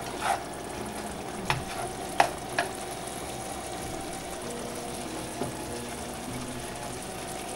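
Glass noodles and ground meat in sauce sizzling steadily in a nonstick frying pan, with a few light clicks of a slotted spatula against the pan during the first few seconds of stirring.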